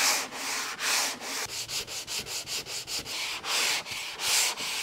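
Hand sanding of faired fiberglass with a long sanding board: repeated back-and-forth rasping strokes. The strokes come quicker and shorter in the middle stretch.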